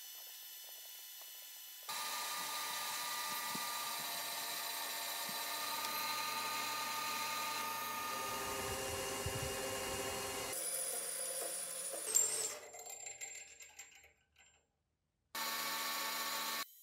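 Metal lathe running while a carbide insert turns an aluminium part, a steady machine whine with the cutting noise, heard in several short clips that cut in and out abruptly. About two-thirds through, the sound dies away to silence, then the lathe noise cuts back in near the end.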